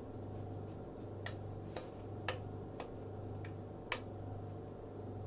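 A handful of sharp, irregular clicks of a metal spoon or ladle against a cooking pot, about five in all, over a steady low hum.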